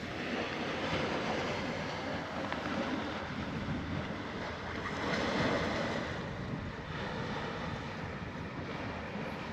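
Wind buffeting the microphone over a steady rush of sea surf, swelling a little in gusts.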